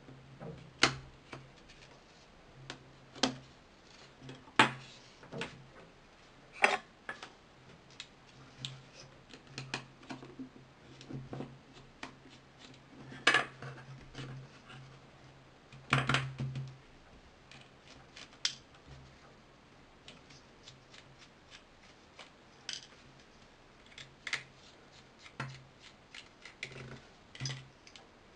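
Irregular sharp clicks and taps of a mobile phone being taken apart by hand: a plastic opening tool working at the case, plastic parts handled on the table, and a small screwdriver at the phone's screws, with a few louder snaps among them.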